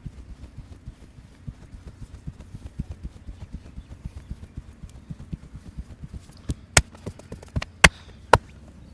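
Hands pounding rapidly on a person's body during a massage, several dull thumps a second. Near the end the pounding stops and five sharp, loud cracks follow in quick succession.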